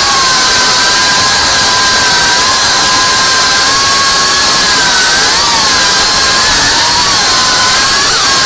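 Brushless motors and propellers of a 5-inch FPV quadcopter in flight, a loud whine over a rushing hiss. The pitch holds steady, then warbles briefly with throttle changes about five seconds in and again near the end.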